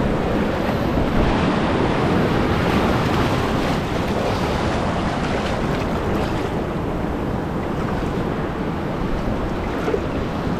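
Surf breaking and foaming around the hull of a fiberglass launch in shallow water, with wind rumbling on the microphone. The hissing wash is strongest in the first few seconds and eases after about six seconds.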